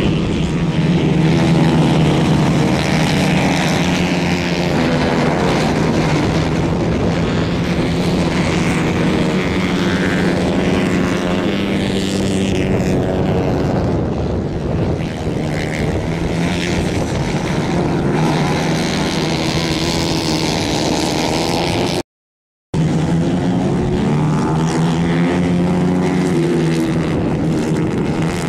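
Several 150 cc Kayak-class racing kart engines running hard on track, their pitch wavering up and down as the karts lift off and accelerate through the corners. The sound cuts out completely for a moment about two-thirds of the way through.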